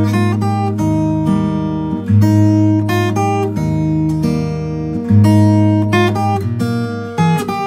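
Morris W-25 steel-string acoustic guitar playing a chord progression, picked notes ringing over held bass notes that change every second or two.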